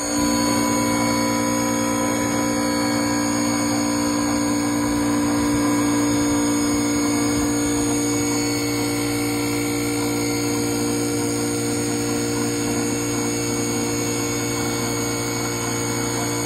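CNC wood lathe running and cutting a long wooden rod: a steady machine whine of several held tones over the even noise of the cutter taking wood off the spinning blank.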